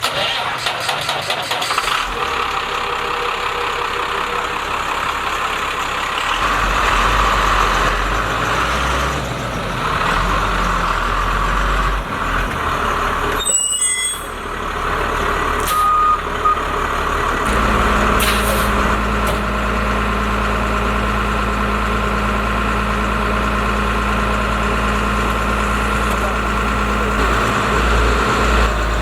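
Freightliner FL70 bucket truck's engine starting and running. The engine note shifts and dips briefly about halfway through, then settles into a steady idle.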